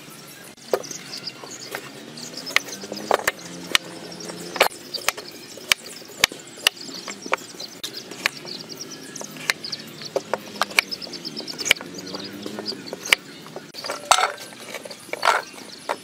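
Kitchen knife chopping a carrot on a cutting board: sharp knocks of the blade striking the board, irregular, about one every half second to a second. There are two longer, heavier knocks near the end.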